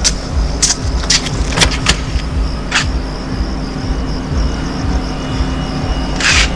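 Low, steady car and traffic rumble, with a faint high hiss over it, broken by several short clicks in the first three seconds and a brief hissing rustle near the end.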